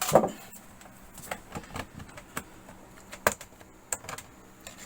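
Plastic clips of a laptop's bottom case snapping loose as the case is pried off: a sharp crackling snap at the start, then scattered lighter clicks.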